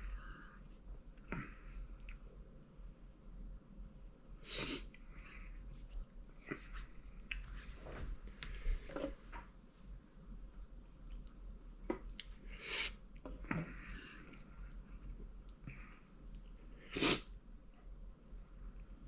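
A person sniffling and breathing hard through the nose, with a few sharp nasal bursts, the loudest about two seconds before the end: a reaction to the burn of Carolina Reaper pepper.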